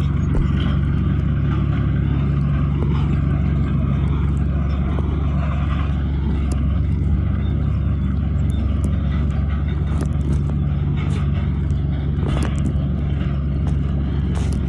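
Heavy diesel engine of earthmoving machinery running steadily under load, a constant low drone with scattered light clicks and clanks.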